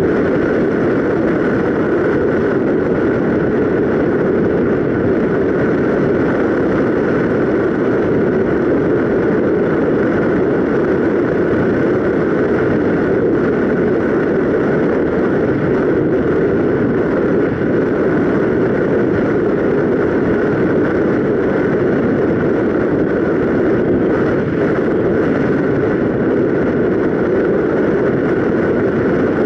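Steady in-flight noise of a ParkZone Radian Pro electric RC glider, picked up by a camera mounted on the plane: airflow rushing over the airframe with a steady hum that does not change.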